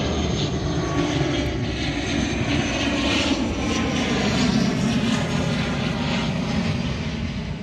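An ATR 72 twin-turboprop airliner's engines and propellers giving a steady drone as it flies low past, flaring to land. The sound swells a little around the middle of the pass.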